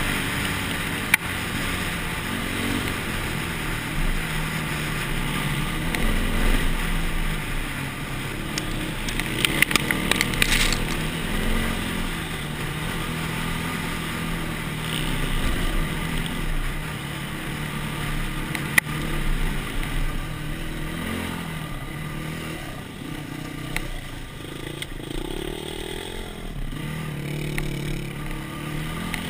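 Dirt bike engine running as the bike rides over sand and rocks, its revs rising and falling with the throttle. A few sharp knocks and a brief burst of rattling come about a third of the way in.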